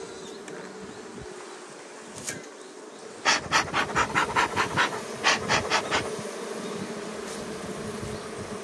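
Western honeybees buzzing steadily at an open hive. About three seconds in, a bee smoker's bellows are squeezed in a quick run of about fifteen puffs, four or five a second, for about three seconds.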